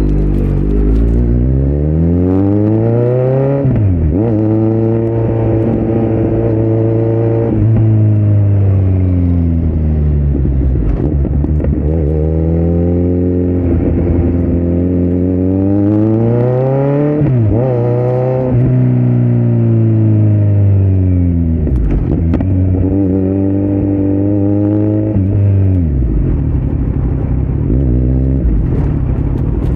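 2018 Kawasaki Z900's inline-four engine through Delkevic headers and a Yoshimura muffler with no dB killer, under hard acceleration. The exhaust pitch climbs through the revs and drops sharply at each upshift, several times over. In between are spells where the pitch sinks slowly as the throttle is eased off.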